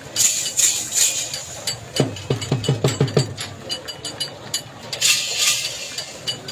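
A pair of running bulls yoked to a beam turning on an iron pivot frame, with a steady rapid jingling clatter like small bells. About two seconds in comes a quick run of about six low heavy thuds, and there are short flares of hiss near the start and about five seconds in.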